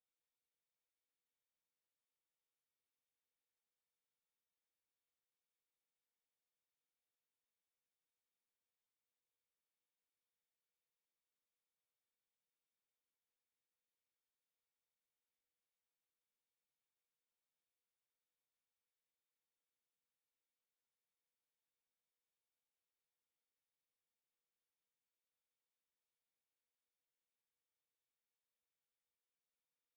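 Steady, loud 7777 Hz sine-wave test tone: a single constant high-pitched whistle with no other sound.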